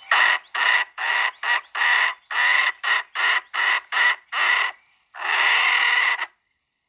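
Chicken cackling loudly: a quick run of about eleven short, sharp calls, then one long drawn-out call near the end.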